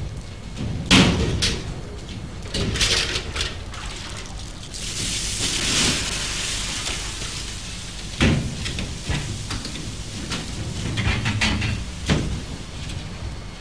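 A scuffle in machinery: a string of knocks and bangs, with a hiss of about two seconds near the middle, over a steady low hum.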